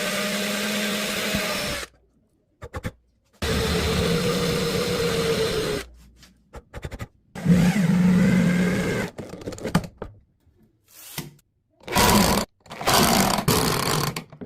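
Electric drill motor running in several separate bursts of one to two seconds, its pitch shifting slightly under load, with a few shorter runs near the end.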